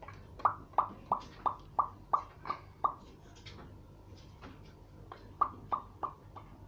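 A small child making a run of popping mouth noises, about three pops a second, pausing, then starting another run near the end.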